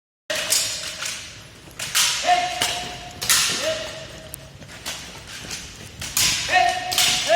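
Spring airsoft guns firing in a rapid string of about a dozen sharp cracks. Several of the shots are followed by a metallic ring lasting up to a second.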